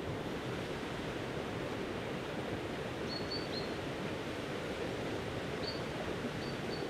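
Steady outdoor background noise, an even rushing hiss, with a few short, high chirps in the middle and near the end.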